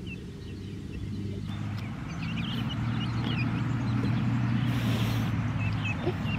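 Baby chicks and guinea keets peeping in short, repeated high chirps, over a low steady rumble that grows louder about a second and a half in. A brief rustle comes about five seconds in.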